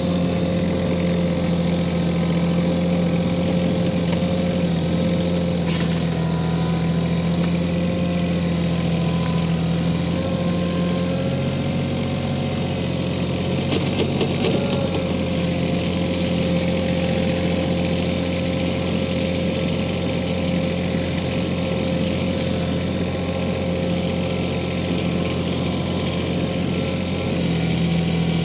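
Kioti CK4010 compact tractor's diesel engine running steadily as the tractor drives slowly past through snow. Its note drops a little about halfway through and comes back up near the end, with a brief clatter as it passes closest.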